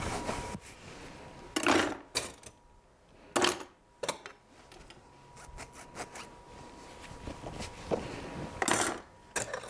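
Dried cutlery and dishes being put away into a drawer: a handful of sharp metallic clinks and clatters at irregular intervals, a second or more apart.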